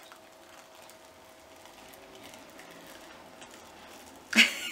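Faint sticky crackling of a glittery peel-off face mask being slowly pulled away from the skin, then a short, loud hiss near the end.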